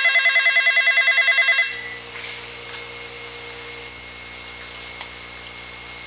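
Electronic wall telephone ringing with a fast warbling trill. It cuts off about a second and a half in as it is answered, leaving a steady low hum and hiss.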